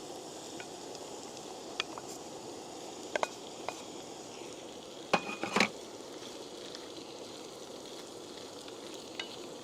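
Morel mushroom caps and chopped onion sizzling in oil in a frying pan, with a utensil stirring and clinking against the pan a few times, loudest about five seconds in.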